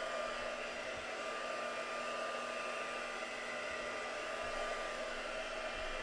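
Craft heat tool blowing steadily with a constant whirring hum, drying sprayed distress oxide ink on a card background.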